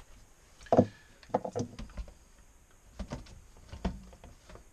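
Plastic bidet toilet seat being set down on a porcelain toilet bowl and worked into place: one loud knock a little under a second in, then several lighter knocks and clunks.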